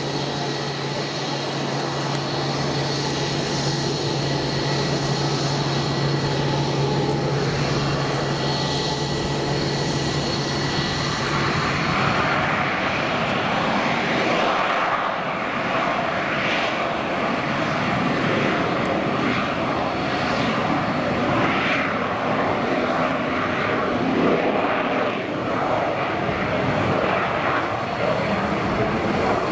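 Twin turbojets of a 1965 North American Sabreliner 40 (TP 86) whining steadily at low power, then spooling up to takeoff thrust about twelve seconds in. From there a loud, broad rushing jet noise takes over as the takeoff roll begins.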